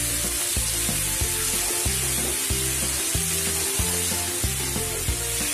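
Chicken, chillies and spices sizzling in hot oil in a wok, a steady frying hiss. Background music with a steady beat plays underneath.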